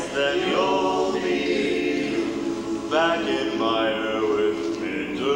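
Male a cappella group singing: a solo voice whose pitch moves over held backing harmonies.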